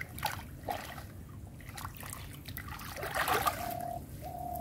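Shallow muddy water splashing and trickling as a man digs with his hands and wades through a flooded field, with a few short splashes in the first couple of seconds. Near the end, a steady high tone sounds twice.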